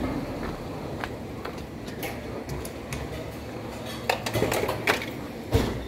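Light clatter of hard objects: scattered clicks and small knocks, with a cluster of louder knocks about four to five and a half seconds in, over a low steady hum.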